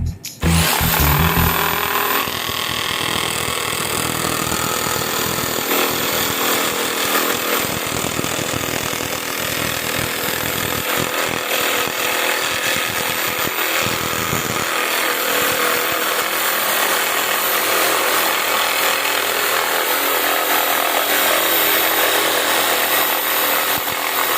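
Yojimbo 850 W electric jigsaw starting up about half a second in, with a rising high whine, then running steadily as its blade saws.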